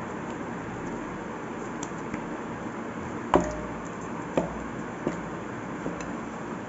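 Stiff dough being pressed and kneaded by fist in a stainless-steel bowl, with a sharp knock and a brief metallic ring about three and a half seconds in, then two softer knocks a second or so apart. A steady hiss runs underneath.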